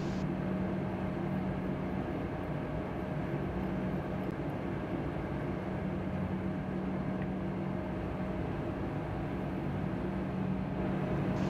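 Steady hum with a faint hiss, unchanging throughout: laboratory room noise such as ventilation running.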